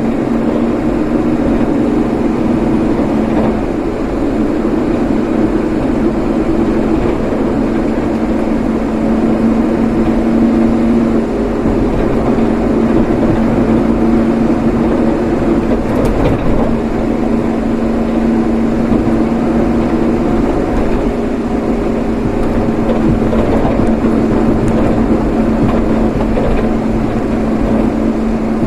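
A vehicle running steadily on the road: a constant engine hum over road noise.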